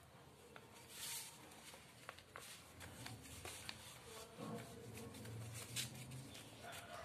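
Faint rustling and crinkling of a sheet of origami paper being folded and pressed flat by hand, with small scattered clicks and scrapes.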